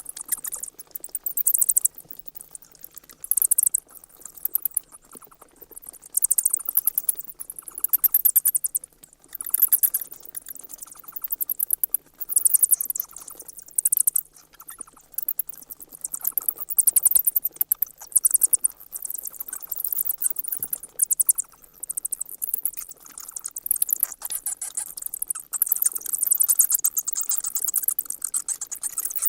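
Bats chittering: rapid, high-pitched squeaks and clicks that come in bursts of a second or two, over and over.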